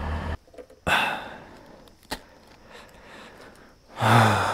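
A person's heavy exhales and a sigh close to the microphone, with a single sharp click between them. A low hum stops abruptly just after the start. The loudest sound is a voiced sigh or grunt near the end.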